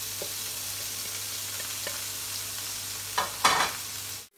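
Diced onion and bell peppers sizzling in a hot frying pan, with light taps of a utensil stirring them. A louder burst of utensil noise comes just after three seconds in, then the sound cuts off suddenly.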